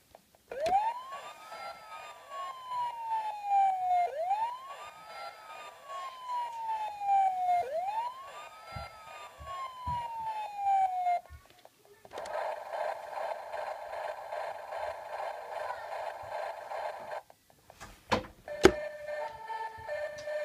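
A toy fire engine's electronic siren playing through its small speaker: three wails, each rising quickly and then falling slowly over about three and a half seconds. Then a different steady electronic sound effect for about five seconds, and two sharp clicks near the end.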